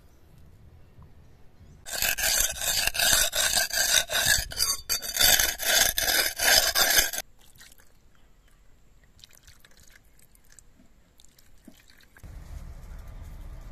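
Cleaver blade being sharpened on a wet stone: loud, rasping scrape strokes in quick succession for about five seconds, stopping abruptly. A low, steady rumble comes in near the end.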